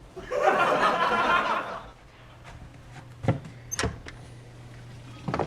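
A person laughing for about two seconds, followed by a low steady hum and a few sharp clicks or knocks.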